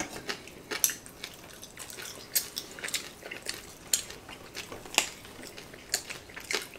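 Metal chopsticks clicking against a plate and close-up chewing of crispy roast pork: a scatter of sharp clicks and crunches, about two a second, irregular.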